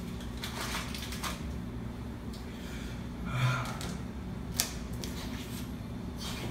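Steady low room hum with brief rustling and handling noises at a washroom sink, a short swell of noise about three and a half seconds in and a single sharp click about a second later.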